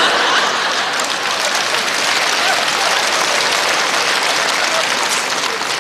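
Theatre audience applauding and laughing: a steady wash of clapping that eases off slightly near the end.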